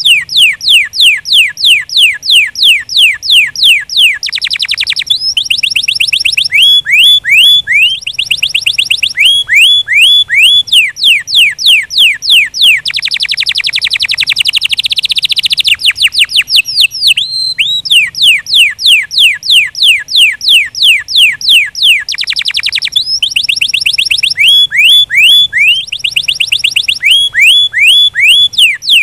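Domestic canary singing a long, continuous song of loud, quick downward-sliding whistled notes, about four a second. The phrases change every few seconds, with fast, dense trills several times.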